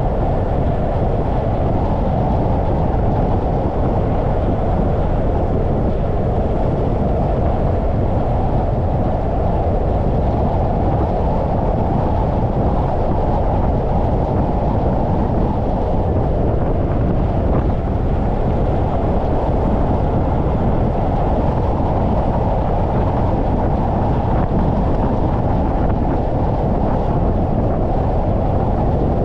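Wind and road noise on a hood-mounted GoPro as the car drives along, a loud, steady deep rumble with nothing else standing out.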